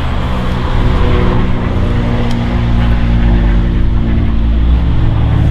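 Car engine idling steadily, a loud, even low hum.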